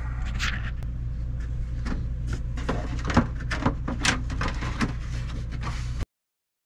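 A plastic roof-vent trim ring being pressed against the ceiling and screwed in place: scattered clicks and knocks of plastic and a screwdriver over a steady low hum. The sound cuts off about six seconds in.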